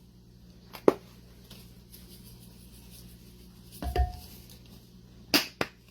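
A few sharp clicks and a dull knock from kitchen containers being handled while ingredients go into a slow cooker, over a low steady hum.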